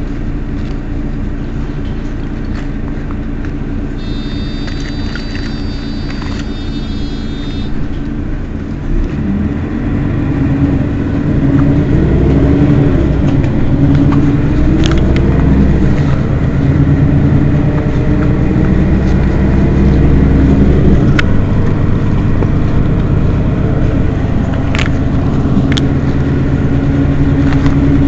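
Mercedes-Benz Citaro city bus diesel engine running at idle. A high electronic tone sounds for a few seconds near the start. From about nine seconds in, the engine grows louder with a wavering pitch, then settles back to idle at around twenty seconds.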